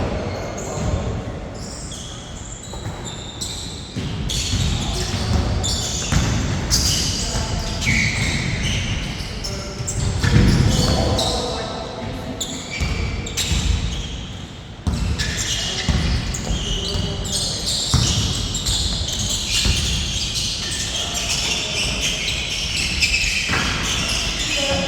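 Basketball bouncing on a court floor during play, in repeated knocks, with players' voices calling out in between.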